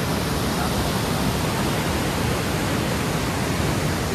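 Steady rush of water flowing through the dam, an even unbroken noise.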